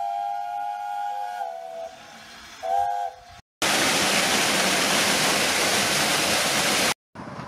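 A steam whistle gives a long two-note blast that dies away about a second and a half in, then a short second blast. After a brief silence, water pours loudly through and over the top gates of a canal lock, an even rushing for about three seconds that cuts off suddenly.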